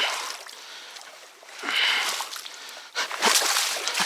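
Water splashing and sloshing as a person wades through shallow river water, in three surges about a second or so apart.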